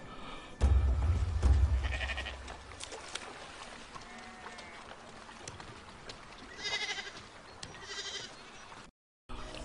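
A loud deep boom about half a second in, fading over a couple of seconds, then a flock of sheep bleating: three short calls, one early and two near the end.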